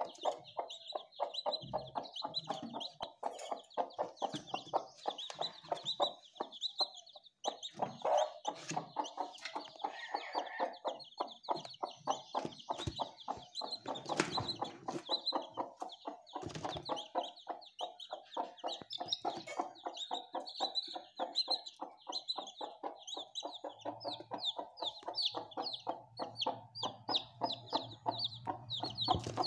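Newly hatched country chicks peeping nonstop, many short high peeps overlapping, with lower, denser calls underneath. A steady low hum comes in near the end.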